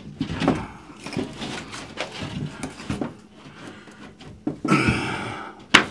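Sheet of drywall being worked into place by hand, scraping and bumping against the wall framing and cabinets: scattered knocks and rubbing, a longer scrape about five seconds in, and a sharp knock near the end.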